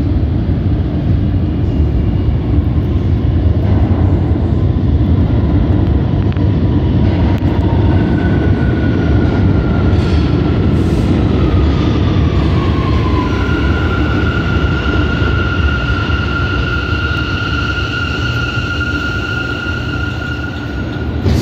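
R179 subway trains moving through an underground station: a loud, steady rumble of wheels on rails. About eight seconds in a high whine appears, sliding down in pitch, and from about thirteen seconds it holds steady as a train moves past.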